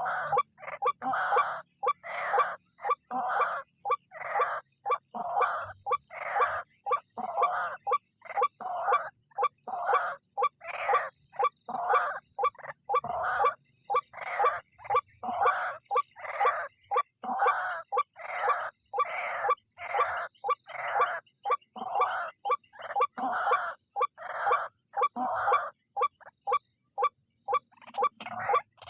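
White-breasted waterhen (ruak-ruak) calling over and over in an unbroken, evenly spaced series of short loud notes, about two a second.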